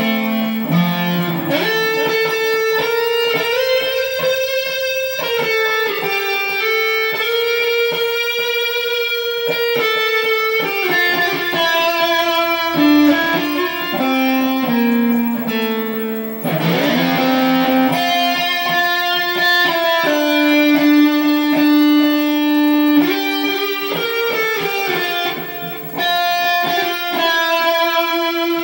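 Solo electric guitar playing the melody of a national anthem as single notes, many of them held for several seconds.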